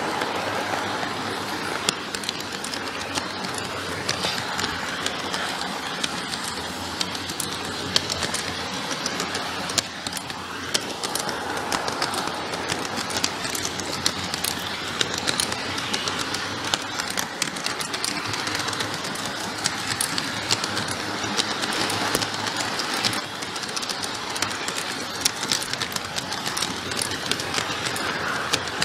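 A G-scale model train running steadily along its track, its motor whirring and its wheels clicking over the rail joints. The sound is picked up close by a camera riding on the train.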